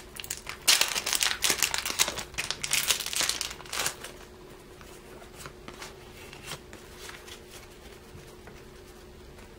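Foil booster pack wrapper crinkling and crackling as it is handled and opened, for about the first four seconds. After that it goes much quieter, with only a few faint ticks of handling.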